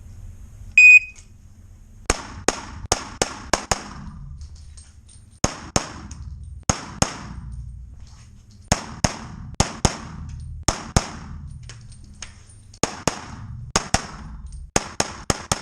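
An electronic shot timer gives a short beep about a second in, then handgun shots follow in strings, mostly fired as quick pairs about a third of a second apart, with pauses of one to two seconds between the strings as the shooter moves between targets.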